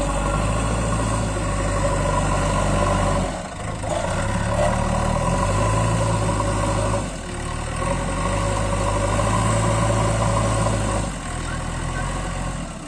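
JCB 3DX backhoe loader's diesel engine running under hydraulic load as the front loader bucket is raised, the engine note dipping briefly three times about every three to four seconds.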